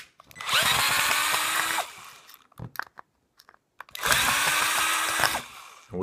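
Power drill-driver with a Phillips bit backing out the small screws that hold the brass filter housing on a dishwasher fill valve, in two runs of about a second and a half each with a pause between.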